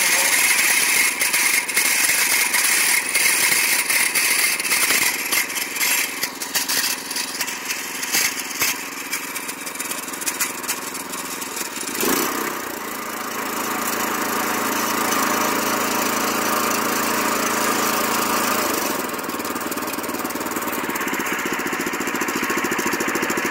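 Predator 212 single-cylinder gas engine running on a belt-driven tiller, freshly started on its first pull. About halfway through the sound changes and settles into steadier, evenly pitched running.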